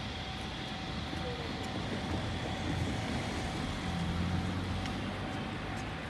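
Distant low rumble of an approaching freight train hauled by an electric locomotive, swelling slightly in the middle, with a faint steady whine above it.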